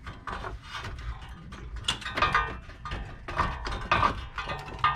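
Honda J35 front catalytic converter being wiggled up off its bottom-flange studs: irregular metallic scraping, rubbing and small knocks as it shifts against the studs and surrounding parts.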